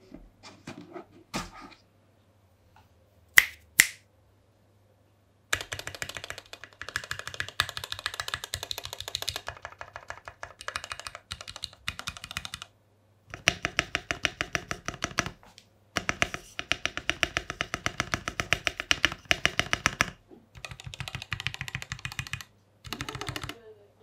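Typing on a custom YMDK 96 mechanical keyboard with lubed Gateron Ink V2 Black linear switches, an aluminium plate and PBT keycaps. A few scattered key presses and two loud single clacks about three and a half seconds in, then fast continuous typing in runs a few seconds long separated by short pauses.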